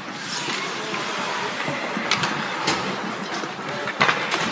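Ice hockey rink noise: a steady hiss with a few sharp clacks of sticks and puck on the ice, the loudest about four seconds in.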